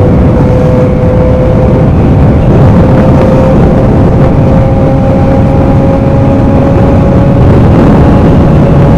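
Small motorcycle engine with a loud exhaust running hard under way, its pitch holding steady and creeping slowly upward as the revs climb.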